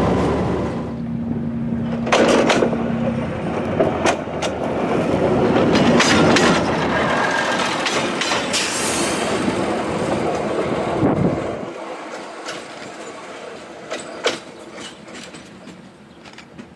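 Narrow-gauge diesel railcar passing close by and running away down the line: engine noise with the wheels clicking over rail joints. Its deep engine sound drops away about two-thirds of the way through, leaving fainter wheel clicks that fade out.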